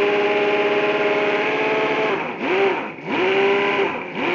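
Chuanqi 47cc V12 model engine running at a steady speed. In the last two seconds its revs drop and pick back up three times.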